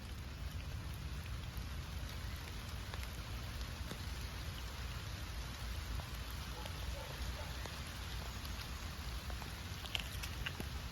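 Steady rain falling, an even hiss with many small drop ticks and a few sharper drop hits about ten seconds in.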